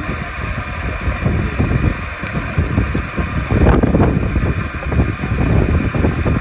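Wind buffeting the microphone: an uneven low rumble that swells and fades, strongest a little past the middle.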